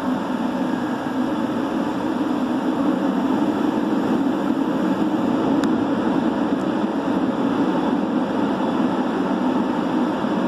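Christ rollover car wash gantry running, its rotating brushes and water spray making a steady rushing noise that starts suddenly and holds, heard from inside a car through the windshield.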